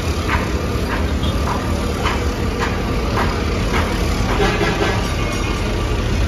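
Steady low rumble of an old street tram and road traffic close by, with regular footsteps on a gritty street about twice a second through the first four seconds.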